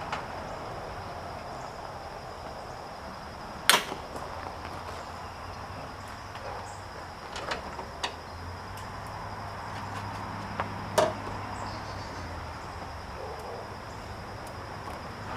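A few sharp knocks and clicks from parts and tools being handled while a car's front bumper is fitted, the loudest about four seconds in and again about eleven seconds in, over a steady low hum.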